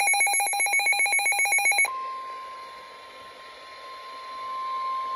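Emergency alert tones: a rapidly pulsing electronic tone for about two seconds, then one steady high beep, the NOAA Weather Radio warning alarm tone that heralds a National Weather Service warning.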